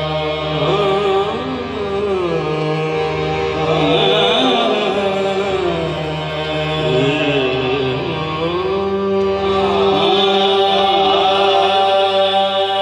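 Qawwali ensemble performing a sehra: harmoniums hold steady chords while singers draw out long, winding phrases over them.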